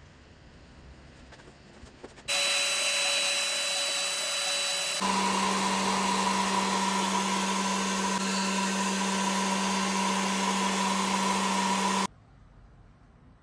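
A small electric motor or power tool running steadily. It starts suddenly about two seconds in, shifts to a lower, different hum at an edit about five seconds in, and cuts off suddenly near the end.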